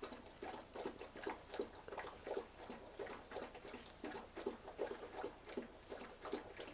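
Dog licking and eating food from a bowl: faint, quick, irregular wet lapping and mouth-smacking sounds, a few a second.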